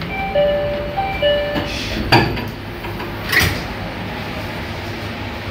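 Train passenger-door chime, a two-note electronic tone sounding twice in quick succession, followed by the sliding door shutting with a thump about two seconds in and another knock a second or so later, over a steady low hum.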